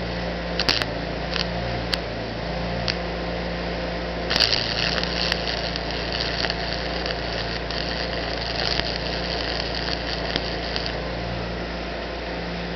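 Stick welding with a 7018 rod on DC: the arc crackles steadily from about four seconds in and stops a second or two before the end, over a steady hum from the welding machine. A few short, sharp crackles come earlier.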